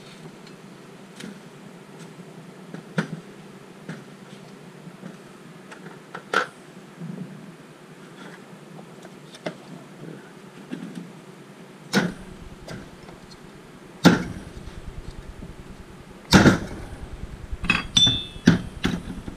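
Metal engine parts clinking and knocking as they are handled and set down on a workbench: scattered single clicks, a few louder knocks about twelve, fourteen and sixteen seconds in, and a run of quicker clicks near the end, over a faint steady hum.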